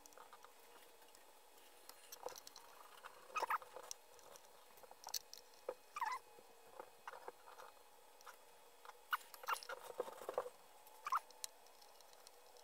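Scattered short scratches, clicks and small squeaks of a screwdriver and fingers working the calibration adjustments on the circuit board of a Conar 281/282 RF signal generator. A faint steady hum runs underneath.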